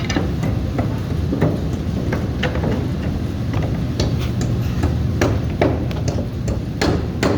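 Irregular series of sharp knocks and taps, about two a second and coming closer together near the end, over a steady low rumble.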